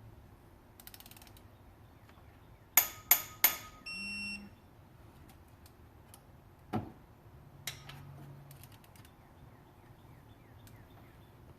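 Ratchet wrench tightening engine bolts in sequence: a quick run of ratchet clicks, three loud sharp metallic clicks near the middle followed by a short electronic beep, then two more sharp clicks and another brief bout of ratcheting.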